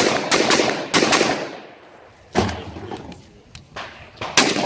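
Gunshots from a 3-gun competition stage: a quick string of shots in the first second or so, then a single shot about halfway through and another near the end, each ringing out after the crack.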